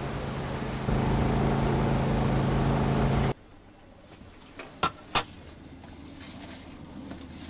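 A steady engine hum with a low drone. It steps louder about a second in, then cuts off suddenly a little after three seconds. A quiet room follows, with two sharp clicks.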